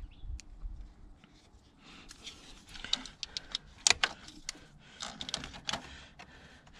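Handling noise of a battery cable's ring terminal being worked onto the main power bolt in a car's under-hood fuse box: a string of small clicks and rattles, starting about two seconds in.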